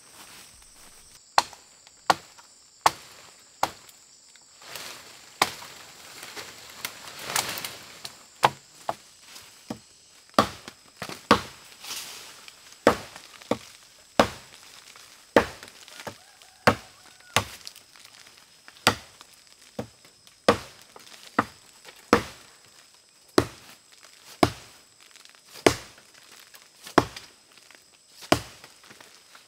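Axe chopping into wood: a steady run of sharp blows, about one a second, starting about a second and a half in.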